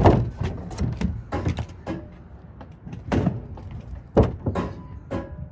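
A series of irregular knocks and clunks as a sheet-metal plenum box and ductwork are handled and banged about.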